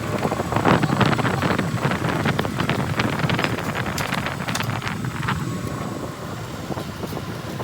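Metal-working lathe running, with irregular scraping and clicking of a tool working on metal that eases off after about five seconds.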